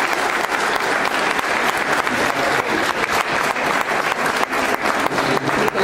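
A roomful of students applauding, with dense, steady clapping.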